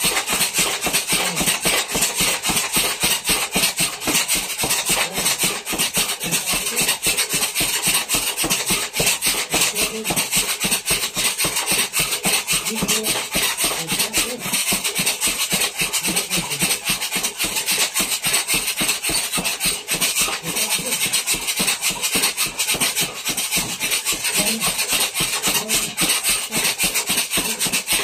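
Boxing gloves hitting a hanging heavy punching bag in a continuous flurry of straight punches, several hits a second without a break.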